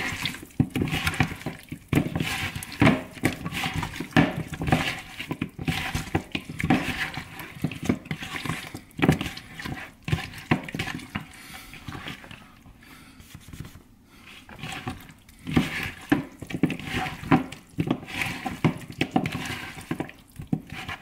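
Raw chicken wings squished and tossed by hand in lime juice and seasoning in a plastic bowl: wet squelching and slapping in an irregular run, with light knocks against the bowl, quieter for a few seconds past the middle.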